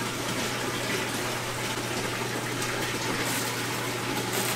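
Steady rush of circulating water with a low, even hum, typical of an aquarium system's pumps and water flow running.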